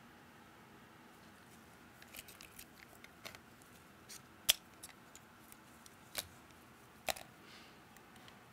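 Scattered small clicks and taps of tools, screws and parts being handled on a repair bench during MacBook Air disassembly. The loudest sharp knocks come about four and a half seconds in and again near six and seven seconds.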